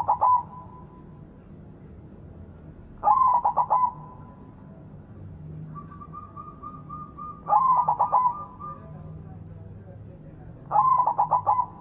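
White zebra dove (perkutut) cooing its song: short phrases of rapid stuttering notes, each under a second long, repeated about every three and a half seconds. The end of one phrase is heard at the start, then three full phrases follow.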